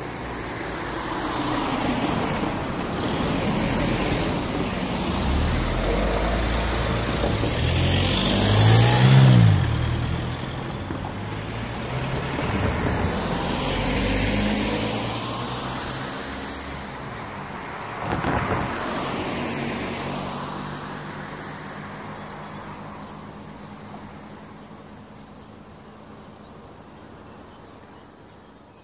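Road vehicles driving past over a level crossing; the loudest passes about nine seconds in, with its engine note rising then falling. Another vehicle goes by at about eighteen seconds, then the sound fades away to a low hum.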